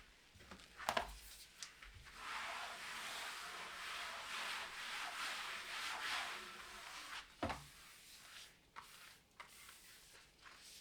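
Rubbing across a surface for about five seconds while cleaning, with a few light knocks and clicks before and after.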